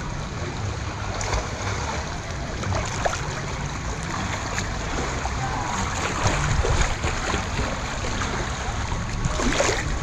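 Lazy-river water sloshing and lapping right at the microphone as it drifts with the current, with small splashes throughout and a brief louder splash near the end.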